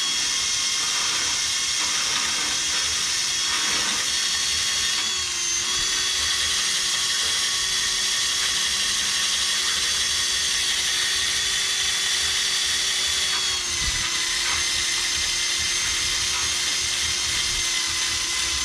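Small electric drill spinning a mounted grinding wheel against metal, grinding off paint; a steady high whine whose pitch sags briefly twice.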